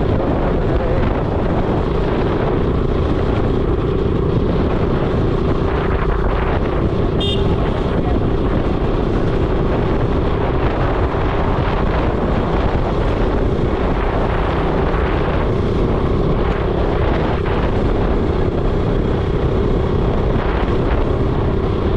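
Motorcycle being ridden at a steady speed, its engine holding an even pitch under heavy wind noise on the microphone. A brief high beep sounds about seven seconds in.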